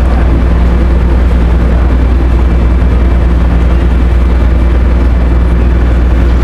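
Ferry's engines running with a loud, steady low drone and hum.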